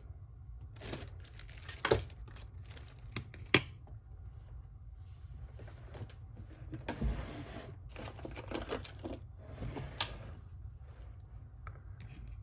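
Metal clicking and scraping as small tools work at the retaining clip on the back of a Zeiss Ikon SK6 lock cylinder to pry it off, with two sharp clicks about two seconds in and a second and a half later.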